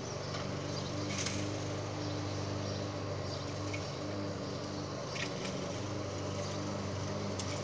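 A motor running steadily: a low mechanical hum with a few faint, brief high chirps over it.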